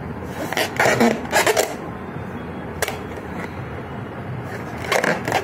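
Inflated rubber balloon being squeezed hard against the chest with arms and hands, its skin squeaking and rubbing in a few short spells, about a second in, again just after, and near the end. One sharp click near the middle; the balloon does not burst.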